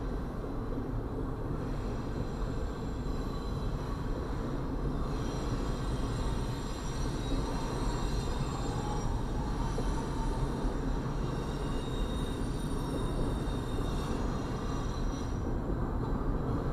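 Double-stack intermodal freight train's well cars rolling past, a steady rumble and clatter of steel wheels on rail. Faint high-pitched ringing tones come in about five seconds in and fade out near the end.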